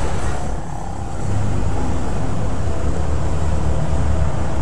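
Steady low rumble of outdoor background noise, dipping briefly about half a second in.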